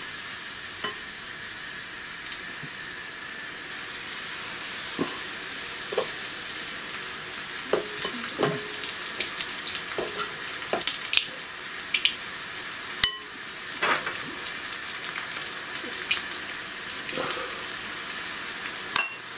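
Battered onion rings deep-frying in hot oil in a wok: a steady sizzle, with scattered sharp clicks that come more often from about five seconds in.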